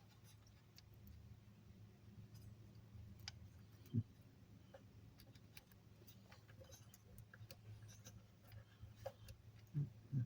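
Faint, scattered small clicks and light taps of hand tools being handled on a circuit board, with one louder knock about four seconds in, over a low steady hum.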